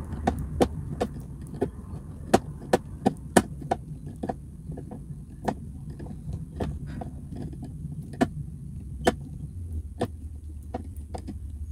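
Screws being driven by hand into a flat-pack cubby panel with a screwdriver: irregular sharp clicks and ticks, about two or three a second, as the screwdriver turns and regrips. A low steady hum lies underneath.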